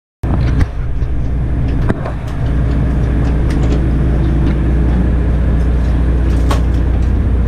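Steady low drone of a deep-sea fishing boat's engine running, with a few sharp knocks as fish are handled into a fish box.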